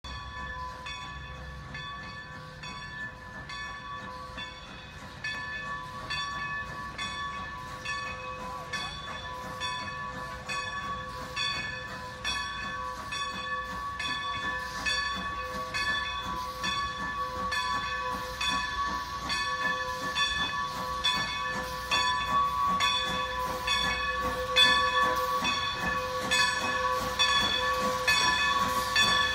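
Strasburg Railroad #90, a 2-10-0 steam locomotive, drifting in with a steady rhythm of exhaust chuffs that grow louder as it approaches. A steady high-pitched tone runs under the chuffing throughout.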